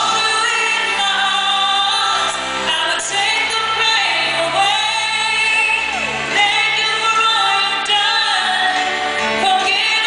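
A female pop singer's live voice with slow, wordless held notes that bend and waver with vibrato, over a soft, sustained accompaniment, heard from far back in an arena audience.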